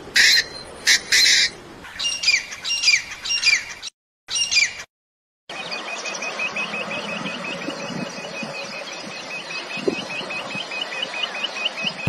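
Bird calls: a few loud harsh calls, then a run of down-slurred high notes, then after a brief break a quail calling a fast, even run of short high notes.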